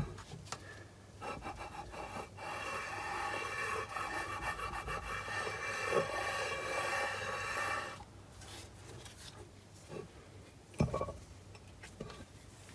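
Cast-iron lathe saddle slid back and forth by hand on a blued surface plate, a steady metal-on-plate rubbing with a ringing tone in it. This is spotting the part to check how flat it sits before scraping. The rubbing stops about eight seconds in, and a single knock follows about three seconds later.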